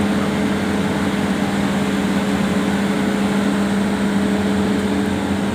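Hitachi EX200 excavator's diesel engine running at a steady speed, a constant hum.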